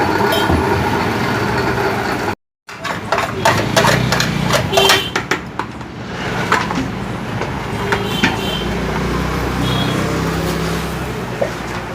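Motor-driven wet-grinding mill running with a steady hum while it grinds soaked rice into idli batter, with a run of sharp metallic clicks and clatter in the middle. The sound cuts out for a moment about two and a half seconds in.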